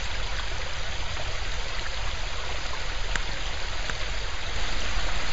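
Shallow creek of ice melt-off running over rocks and leaves: a steady, even rush of flowing water.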